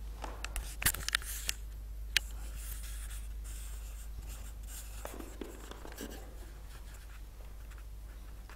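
Handling noise from a handheld camera being moved: rubbing and scratching on the camera body, with a few sharp clicks in the first two seconds and softer rubbing about five seconds in, over a steady low hum.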